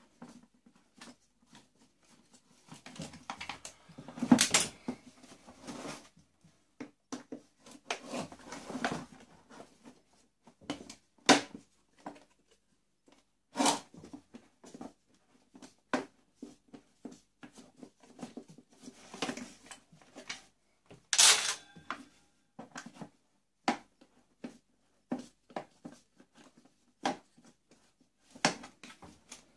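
Hands taking apart an industrial vacuum cleaner's motor head: irregular clicks, knocks and scraping as its parts are pried and pulled loose, with several sharper knocks.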